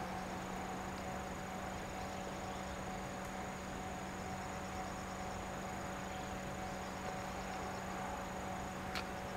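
Insects chirping in short high trills that come and go, over a steady low hum, with a single sharp click near the end.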